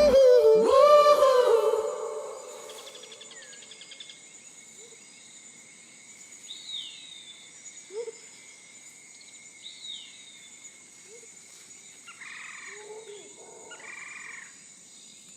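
A song with singing fades out over the first two seconds, leaving a faint night chorus of frogs croaking in short bursts over a steady high insect trill, with a few falling chirps.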